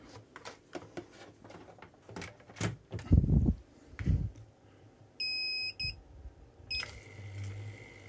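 Handling knocks and clatter, then a sous-vide immersion circulator beeping: one steady beep about five seconds in and a short second beep just before seven seconds. After that the device sets to running with a steady high whine over a low hum.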